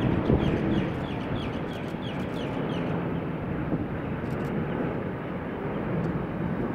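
Steady roar of a departing jet airliner's engines, with a bird calling over it in a quick run of short falling chirps, about three a second, during the first three seconds.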